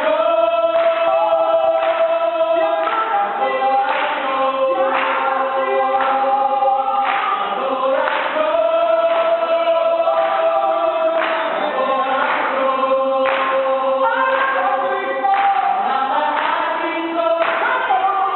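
Church worship group singing together as a choir, holding long notes in harmony over music with a steady beat.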